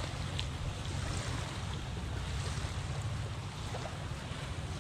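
Wind buffeting the microphone, a steady low rumble over a faint even hiss of shoreline air and water.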